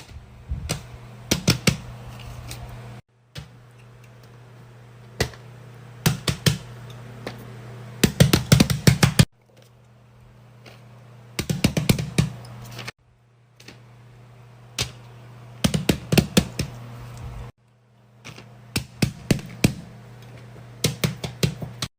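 Irregular runs of sharp clicks and taps over a steady low hum, in several short segments that cut off suddenly, each a few seconds long.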